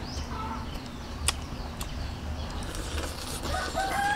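A rooster crowing: one long call begins about three and a half seconds in, held level in pitch. A single sharp click comes about a second in.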